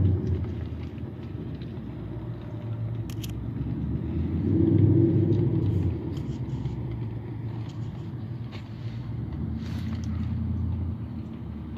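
Van engine running after a carburetor rebuild: a low rumble that swells louder for a couple of seconds in the middle, with a few sharp clicks. The engine is knocking and clacking, which the owner traces to the air cleaner's wing nut lost into the intake manifold, valves or a cylinder.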